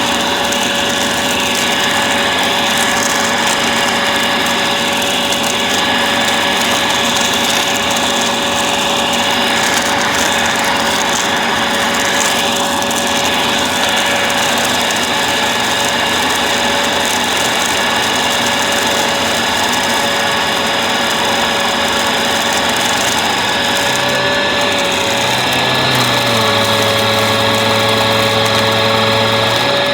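Bissell vacuum cleaner running steadily, its motor giving a constant whine. Near the end the motor's note shifts and a lower hum comes in.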